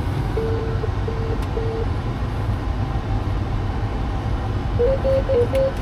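Diesel engine of a farm machine idling steadily just after an oil and fuel-filter change. Three short electronic warning beeps sound in the first two seconds, and a quicker run of beeps that step up and down in pitch comes near the end.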